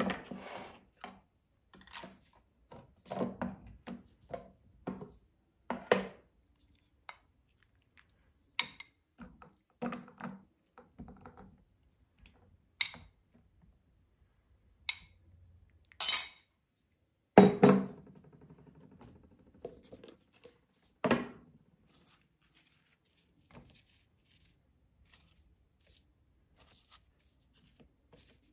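Serving spoons and a ladle knocking, scraping and clinking against plastic dishes, plates and a glass bowl as food is served out, in scattered irregular taps with the loudest knocks a little past halfway.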